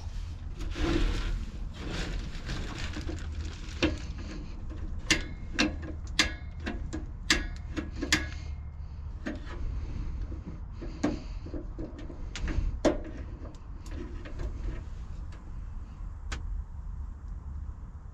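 Portable propane radiant heater being handled and its control knob worked: a string of irregular sharp clicks and knocks with some rubbing, over a low steady rumble.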